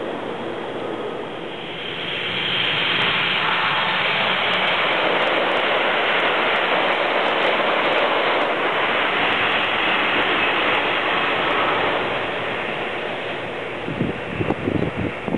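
Rushing noise of a train passing through the station at speed, building about two seconds in and dying away after about ten seconds, beside a commuter train standing at the platform. A few short knocks come near the end.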